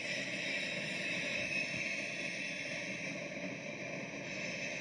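Freight train cars rolling past on the rails: a steady, even noise with hiss and no distinct locomotive engine note.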